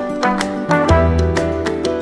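Background music: an instrumental with a bass line and a regular percussive beat.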